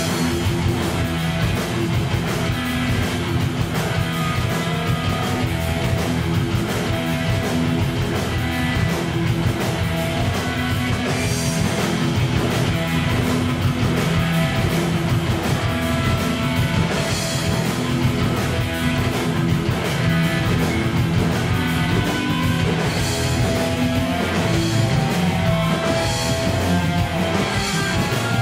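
Live rock band playing a song: electric guitars, bass guitar and drum kit together at full volume.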